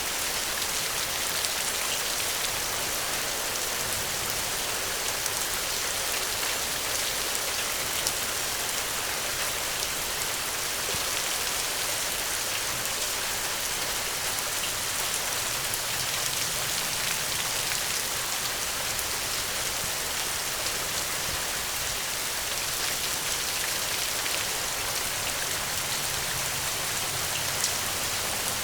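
Steady rainfall, with individual drops pattering on a surface over an even hiss.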